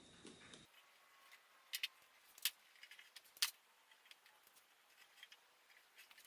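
Scattered light metallic clicks and clinks of hand tools working on the tailgate latch bolts, the loudest three between about two and three and a half seconds in.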